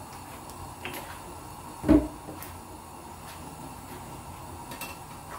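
A single sharp knock about two seconds in, with a brief ring after it, over a steady low background hiss; a few faint clicks come before and after it.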